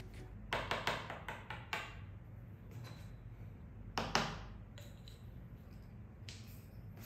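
Light clicks and taps of small objects being handled on a wooden desk: a quick cluster of knocks in the first two seconds, then a sharper knock about four seconds in as a wooden stick meets a small wooden dish, over a low steady hum.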